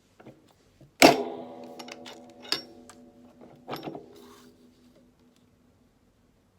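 A graphic circle punch pressed down with a loud clack about a second in, setting the metal machines on the table ringing and rattling for a few seconds. Smaller clicks follow, and there is a second knock near four seconds.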